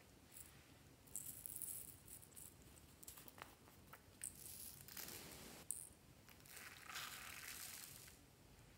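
Faint rattling of tiny glass beads poured from a small plastic capsule into a palm, with a few light plastic clicks.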